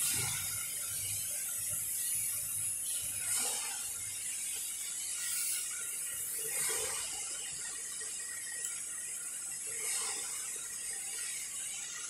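Short mechanical ratcheting noises, a few bursts a few seconds apart, from hand work on a CNC machine's spindle.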